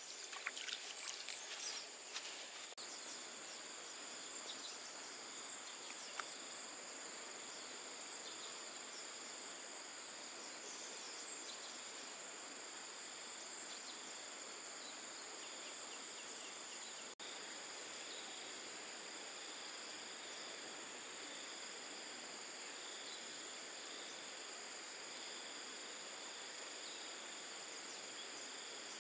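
Chorus of insects: several steady high-pitched whines, one pulsing regularly, over a soft even hiss. A few sharp clicks and knocks in the first couple of seconds.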